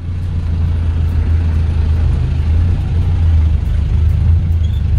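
Jeepney's engine running with a steady low drone, heard from inside the open-backed passenger cabin together with road and wind noise.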